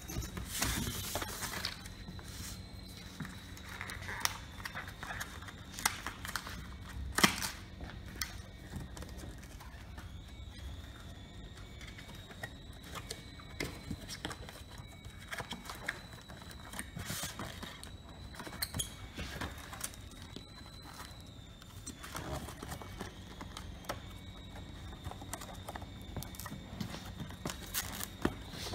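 Flat cardboard box blanks being slid, folded and creased by hand on a wooden tabletop: irregular rustles, scrapes and taps, with one sharper knock about seven seconds in.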